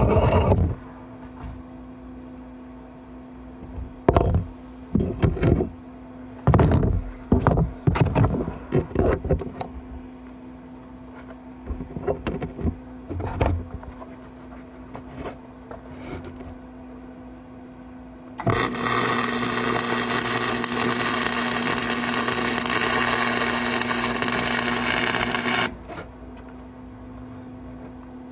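A run of sharp knocks and clatters in the first third, then a welding arc crackling steadily for about seven seconds and cutting off suddenly, over a steady low hum.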